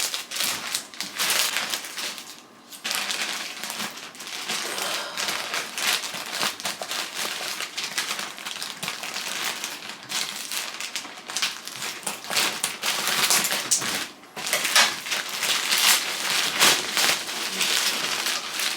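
Plastic packaging crinkling and rustling, handled continuously in uneven bursts with short clicks, as packages are opened and their contents unpacked.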